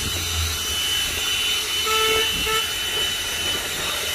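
Agaro CV1077 corded handheld car vacuum cleaner running steadily, a high motor whine over rushing air as its nozzle works across a floor mat. Two short beeps sound about two seconds in.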